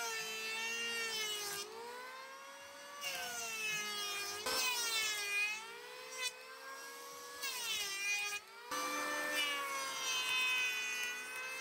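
Electric hand planer running and cutting a wooden axe-handle blank: a high motor whine that sags in pitch as each pass bites into the wood and climbs back when it eases off, dipping briefly a few times between passes.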